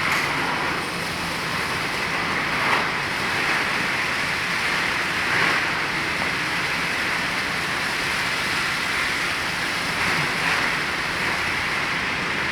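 Tarp welding machine running steadily: a constant hiss over a low hum, with a few soft swells.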